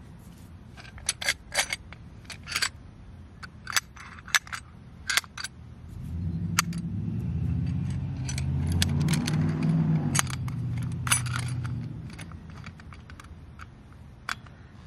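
Sharp metallic clinks and taps of antenna mounting hardware being handled against a metal radial plate, many in the first five seconds and a few later. Between about six and twelve seconds a low engine hum swells and fades.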